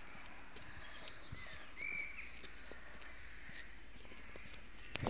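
Faint outdoor background with scattered light taps of footsteps on the pavement, and a short high chirp about two seconds in.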